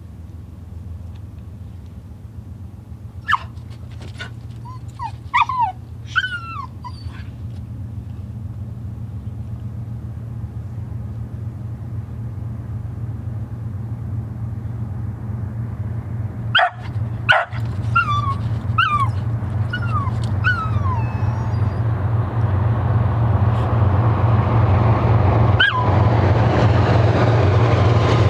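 A dog barks in two bouts of short barks that drop in pitch, about three seconds in and again after about sixteen seconds, with one more bark near the end. Under the barking, the diesel locomotives of an approaching BNSF freight train led by a C44-9W rumble steadily, growing louder as the train nears.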